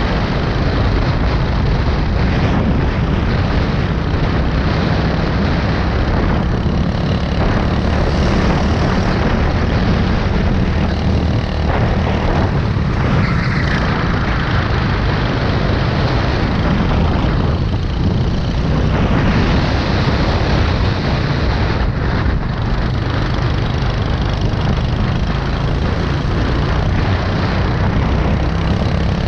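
Go-kart engine running hard at racing speed, heard close up from the kart itself.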